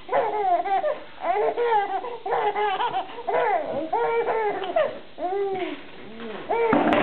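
Baby in a fit of laughter: repeated short bursts of laughing in bouts with brief pauses, loudest near the end.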